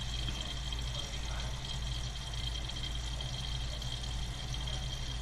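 Toilet tank refilling through a newly installed fill valve: a steady hiss of water running into the tank, with a low hum underneath.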